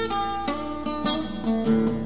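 Solo acoustic guitar playing, notes and chords picked about twice a second, each ringing on into the next.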